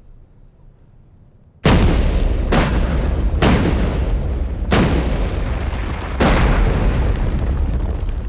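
Explosive charges blasting a rock cliff face. A sudden loud blast comes about a second and a half in, followed by four more sharp reports over the next five seconds, all over a continuous deep rumble.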